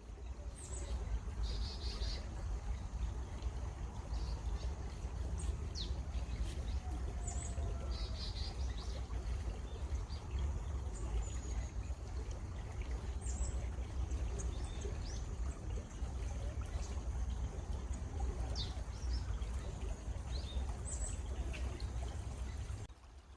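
A stream of running water, a steady trickling rush, with small birds chirping and calling in short high notes scattered throughout.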